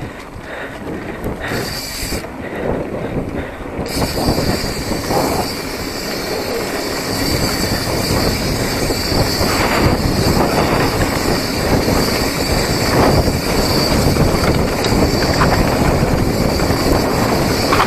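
Mountain bike descending a dirt trail at speed: continuous tyre rumble and rattling of the bike over the rough ground, growing louder after the first few seconds.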